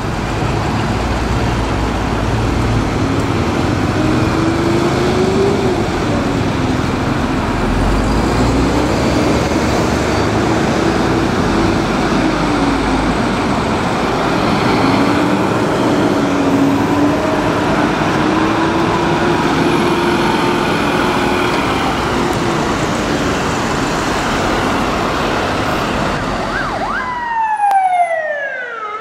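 Fire engines responding with sirens through city traffic, heavy engine and road noise under a slowly wavering siren tone. Near the end a different siren takes over, sweeping quickly down and up in pitch.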